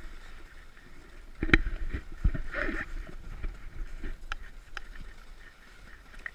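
Green plastic sled scraping and sliding over snow as it is pulled by a rope, with crunching footsteps in snow and a few sharp knocks. It starts about a second and a half in and eases off toward the end.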